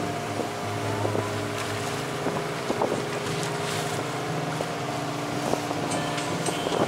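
Sailboat under way at sea, with wind buffeting the microphone over a steady low drone from the boat.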